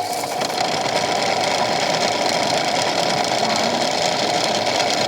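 Toy washing machine's small electric motor running steadily, spinning the drum on a drum-clean cycle, with a steady mid-pitched whine.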